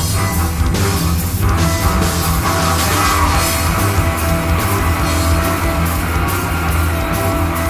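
Background rock music with a steady driving beat.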